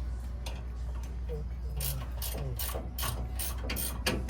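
Ratchet wrench clicking in quick repeated strokes, about three or four clicks a second, starting about two seconds in, over a steady low hum.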